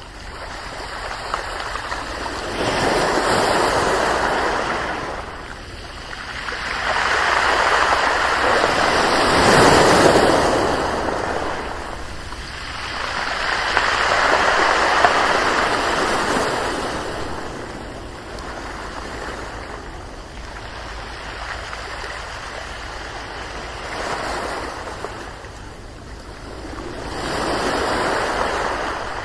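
Ocean waves breaking and washing up in slow surges, each one swelling and falling away over several seconds, the loudest about ten seconds in.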